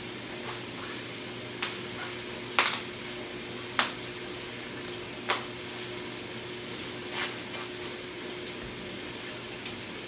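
Pork sizzling in a hot stock pot with a steady hiss, broken by about five short, sharp rustles and clacks as country-style ribs are pulled from their plastic packaging and dropped in.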